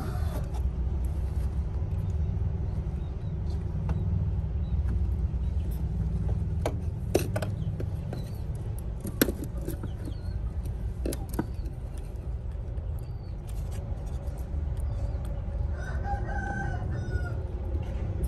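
A rooster crows once in the background, one call of about a second and a half near the end, over a steady low rumble. A few sharp clicks from a plastic plate being handled come earlier.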